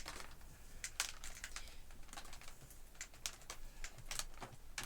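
Light, irregular clicks and taps of handling as the power cord of a Dyson DC03 upright vacuum is wound up around the machine.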